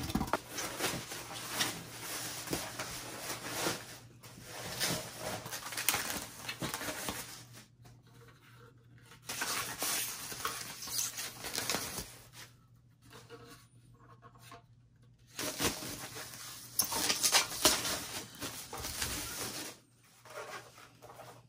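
Polystyrene foam packing inserts and plastic wrapping being handled during unpacking: rustling, crinkling and foam scraping in irregular bursts, with short pauses between, over a faint steady low hum.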